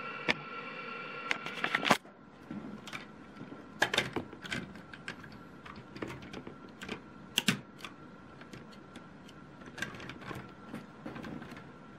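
Plastic Lego parts clicking and tapping as the model truck and car transporter trailer are handled on a studded baseplate: scattered light clicks, with louder bunches about two, four and seven and a half seconds in.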